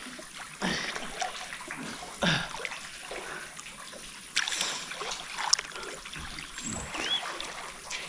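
Water splashing in a swimming pool below a waterfall: a few separate splashes over a steady trickle of water.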